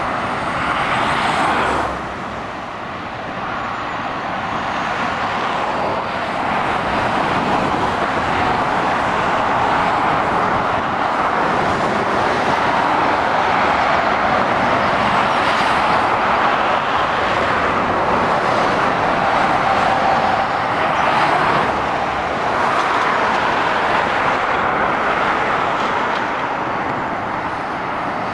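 Steady motorway traffic noise from lorries and cars passing below: a constant hiss of tyres on the road with engine noise, swelling and easing a little as vehicles go by.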